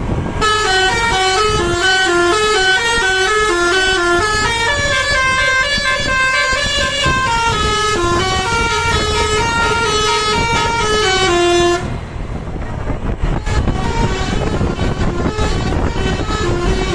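Telolet basuri musical air horn on a bus playing a tune of stepping, overlapping notes for about eleven seconds, then cutting off sharply. Engine and road noise follow.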